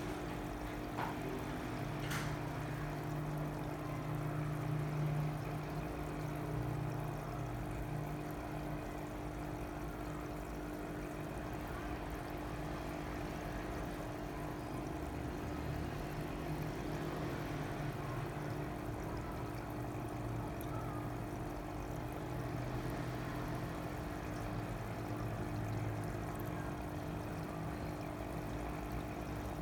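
Water pouring and trickling steadily, with the continuous hum of a pump.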